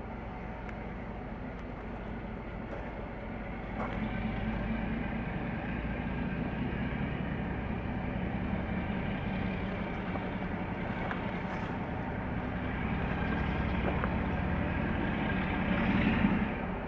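Distant British Rail Class 47 diesel locomotive's twelve-cylinder Sulzer engine running with a steady hum. It grows louder about four seconds in and swells again near the end before dropping back.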